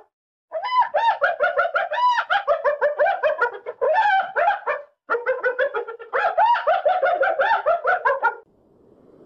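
Rapid chattering bird calls, several short rising-and-falling notes a second, in two long runs broken by a brief gap. Near the end a faint rising rush begins.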